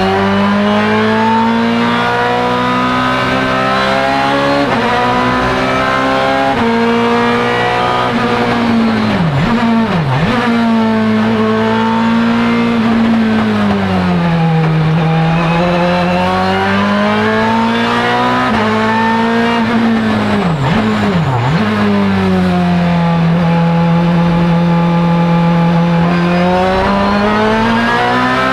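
Ferrari F430 GT2/GTC racing car's 4.0-litre V8 engine at full race pace, heard from inside the cockpit. The engine note climbs in steps through sequential gearshifts, dips sharply twice in quick succession about ten seconds in and again about twenty-one seconds in, and falls and rises again as the car slows and accelerates through corners.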